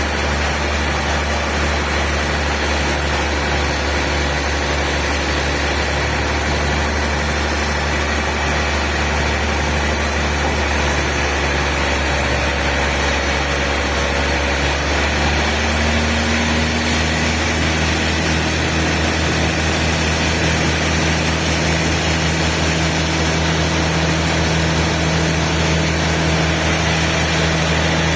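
Sawmill machinery running steadily: a loud, low engine-like drone with a regular pulsing underneath, whose low tones shift about halfway through.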